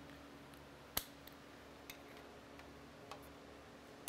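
A few light metallic clicks of a hand tool being fitted to the fork clamp's pinch bolt on a motorcycle, one sharp click about a second in and fainter ticks after, over a low steady hum.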